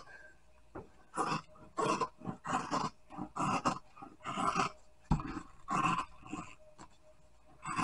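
Large upholstery shears cutting through white vinyl, a rhythmic run of short rasping cuts at about two a second, pausing near the end.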